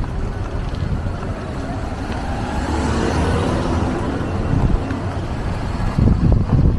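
Wind rumbling on the microphone, with a car driving past, loudest about three seconds in.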